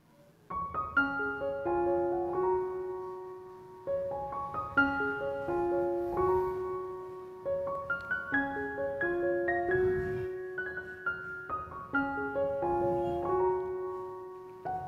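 Background piano music: a melody of held notes that starts about half a second in, its phrase recurring every few seconds.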